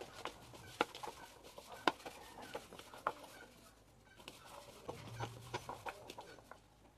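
Raw banana slices being tossed by hand with spice powders and flour in a plastic bowl: irregular soft rustling, with sharp clicks as the slices knock against each other and the bowl.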